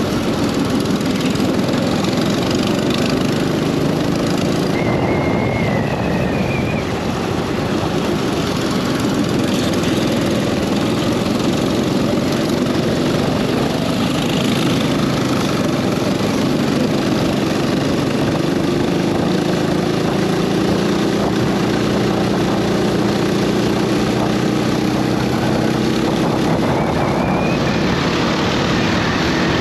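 Go-kart engine running at speed, its pitch rising and falling with the throttle and climbing steadily through the second half, under heavy wind noise on the onboard microphone. Two brief high squeals sound, one about five seconds in and one near the end.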